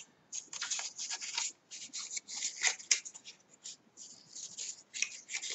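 Paper cardstock being handled and rubbed on a cutting mat: a run of short, irregular rustles and scrapes.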